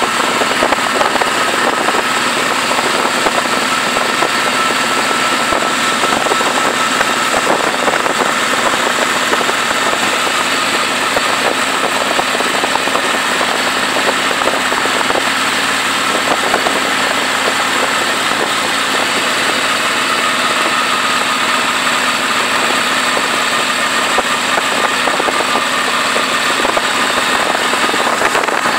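Harley-Davidson motorcycle cruising at a steady speed: engine and road noise mixed with a steady wind rush over the handlebar-mounted microphone, with a faint steady whine running through it.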